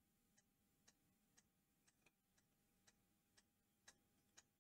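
Near silence with faint, even ticking, about two ticks a second.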